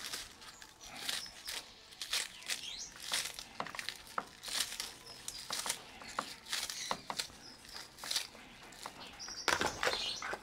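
Kitchen knife slicing through a handful of green scallions held in the hand, the pieces dropping into a bowl of raw pork: an irregular run of light crisp cuts and soft clicks.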